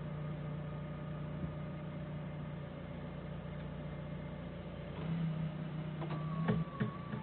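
Doosan 4.5-ton forklift engine running steadily with a low hum. About five seconds in it gets a little louder, and a few sharp knocks and a short steady tone follow near the end.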